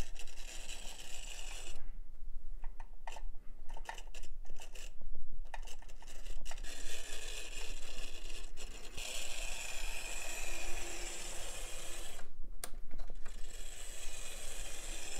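Vintage Mantua Tyco HO-scale model locomotive running on a test track, its small electric motor and gears whirring with many irregular clicks and clattering. The whir grows fuller about halfway through as the motor works through the stiffness of long storage.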